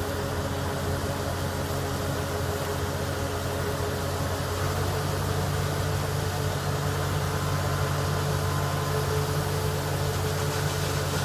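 John Deere 8820 Titan II combine running steadily while harvesting wheat, a constant engine and machinery hum with a slight rise in its low hum about halfway through.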